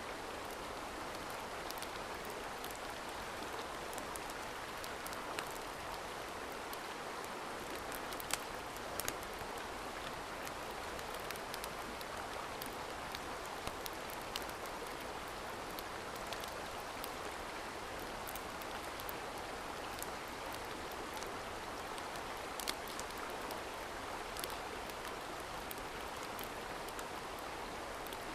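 Steady rush of a mountain stream, with sparse sharp crackles and pops scattered over it.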